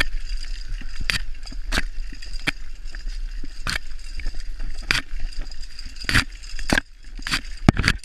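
Zip-line trolley on a steel cable as a rider who has stopped short of the platform pulls himself in hand over hand: irregular sharp clicks and knocks of gloved hands and trolley on the cable, about a dozen, over a steady hiss. The loudest knock comes just before the end.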